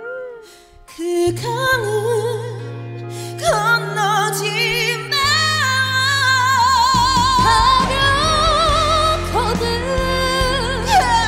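Woman singing a slow trot ballad with wide vibrato over a live band accompaniment. The backing fills out with a steady low bass about seven seconds in.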